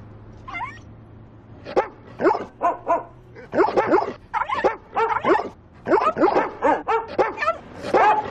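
Dog barking and yipping: one short rising call, then from about a second and a half in a quick run of short barks that grows busier after about three and a half seconds.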